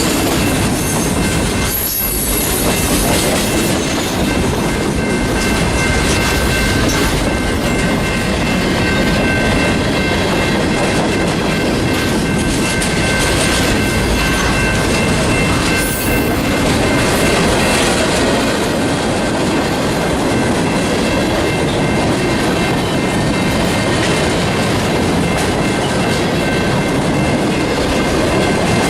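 A train's cars rolling past at close range: a steady, loud rumble and rattle of wheels on the rails, with a faint high squeal held throughout.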